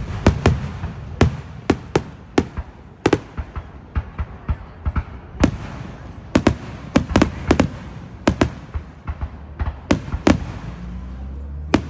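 Aerial fireworks exploding: a rapid, irregular series of sharp booms and cracks, several in quick clusters, each followed by a short echo, over a low rumble.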